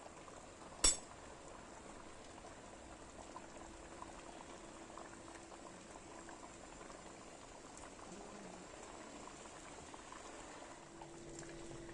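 White mulberry jam boiling in a large steel pot, a faint steady bubbling of thick syrup that is starting to reach its set. There is one sharp click about a second in.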